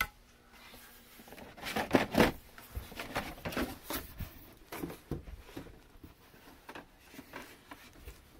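Cardboard box and packing paper rustling, scraping and knocking as the Starlink dish is pulled out of its packaging. The busiest stretch is about two seconds in, with scattered smaller rustles after it that thin out near the end.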